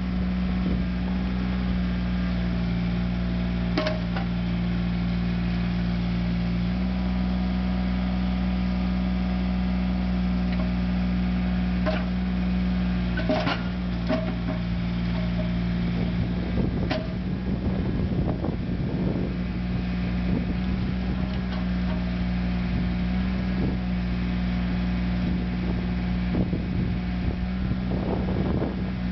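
1999 Caterpillar mini excavator's diesel engine running at a steady speed, its pitch shifting slightly about seven seconds in, with a few sharp knocks scattered through.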